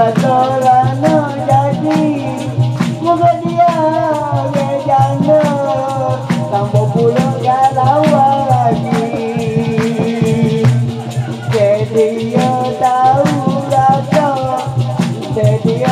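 Dikir barat singing: a man's voice through a microphone and PA holds a long, wavering, ornamented melody over a steady percussion beat with a shaken rattle.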